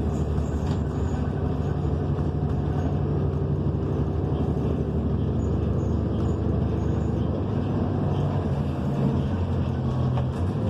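Cummins Westport ISL G natural-gas engine of a New Flyer XN40 transit bus running steadily under way, heard from inside the cabin with road noise. The engine's hum shifts pitch about seven seconds in.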